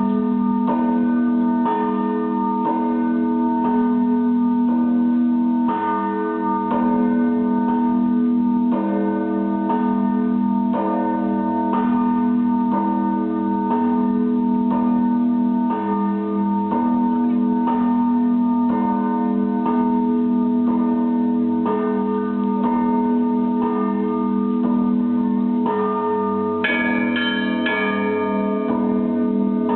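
Russian Orthodox monastery bells ringing: several bells struck again and again in rhythm over the long, sustained hum of the larger bells. Smaller, higher bells ring out more brightly near the end.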